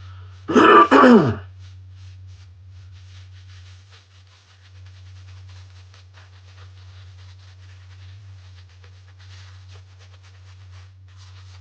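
Synthetic-knot shaving brush swirling and working lather from shave soap: a faint, fast, steady bristly scratching. A man gives a short vocal sound with falling pitch about a second in, and a low steady hum runs underneath.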